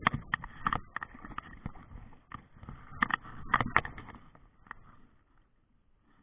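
Irregular sharp clicks and knocks of handling noise right at the microphone as a spinning rod and reel is worked, dying away to near quiet about five seconds in.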